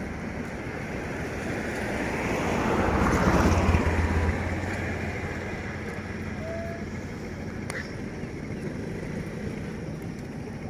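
A motor vehicle passing by, its sound rising to a peak about three and a half seconds in and then fading, over steady outdoor background noise.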